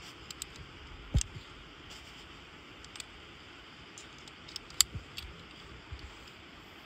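Scattered light metallic clicks and taps of a Tibloc rope clamp and locking carabiner being unclipped and re-clipped on a rope, with faint rope handling and a steady background hiss. The sharpest click comes a little before five seconds in.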